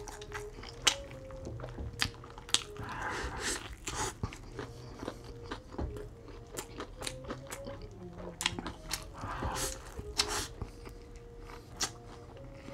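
Close-miked chewing of a mouthful of Burger King Whopper with cheese: many wet mouth smacks and clicks, with two stretches of soft crunching.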